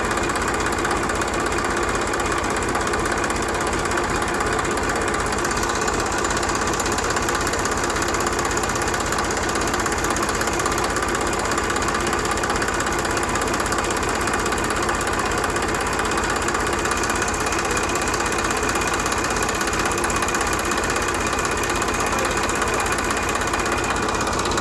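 Small engine running steadily at an even speed, as on a homemade mini tractor.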